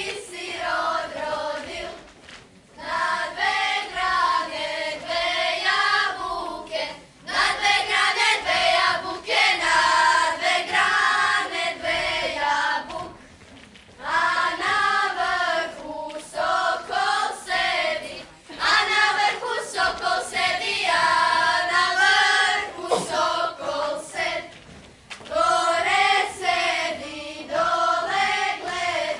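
A group of girls singing a Croatian song together, unaccompanied, in phrases broken by short pauses.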